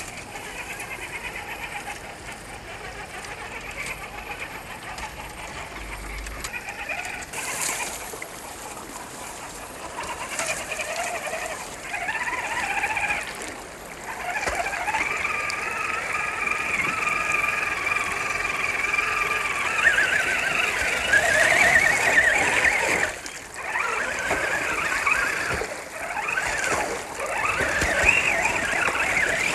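RC rock crawler's brushless electric motor and gear transmission whining, the pitch rising and falling with the throttle, over running stream water that splashes as the truck drives through it. The whine gets louder about a third of the way in.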